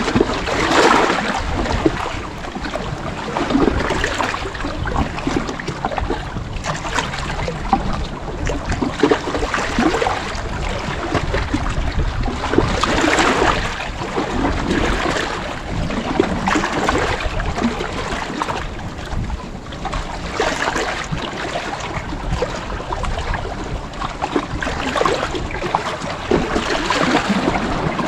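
Sea waves washing in, the surf swelling and falling back in uneven surges every two to four seconds.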